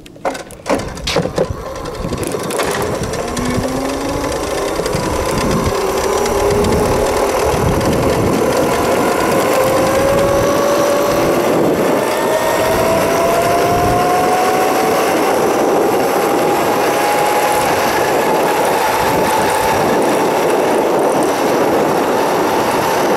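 Electric scooter motor, a Razor E300 overvolted on a 48 V battery and 1000 W controller, whining as it accelerates from a standstill to about 27 mph. The whine rises steadily in pitch for about fifteen seconds and then levels off at top speed, over a steady rushing noise of wind and tyres. A few sharp clicks about a second in.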